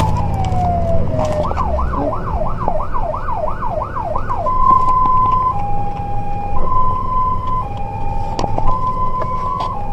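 Fire engine's electronic siren heard from inside its crew cab, over the truck's engine. A falling wail gives way to a fast yelp of about three sweeps a second, then about halfway through it switches to a hi-lo two-tone, each note lasting about a second.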